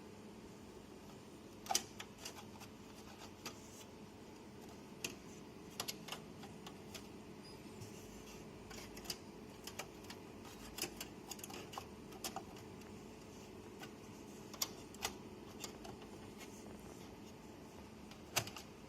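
Irregular clicks and light knocks of computer hardware being handled, some in quick clusters, over a steady low hum.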